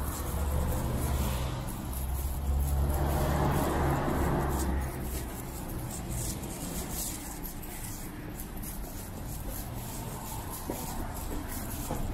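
City bus diesel engines idling: a low steady hum, strongest for the first five seconds and then fading, over the hiss of traffic on a wet street.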